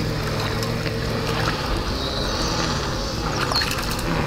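A steady low hum, with a small fish splashing at the water's surface as it is reeled in toward the end.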